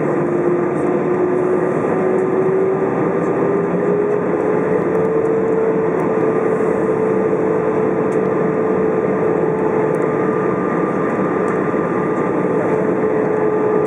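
Airbus A319 cabin noise in flight: a steady roar of engines and airflow, with a droning engine tone that rises slightly over the first five seconds and then holds level.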